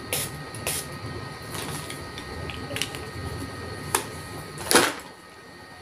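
Makeup setting spray in a pump bottle, spritzed onto the face several times: a series of short hissing sprays, the loudest one near the end.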